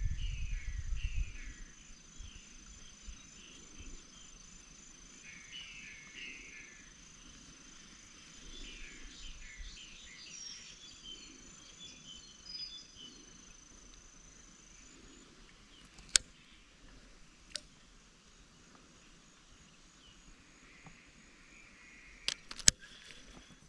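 Quiet outdoor ambience: birds chirping on and off with a steady high-pitched insect trill that stops about two-thirds of the way through. A few sharp clicks come singly in the second half.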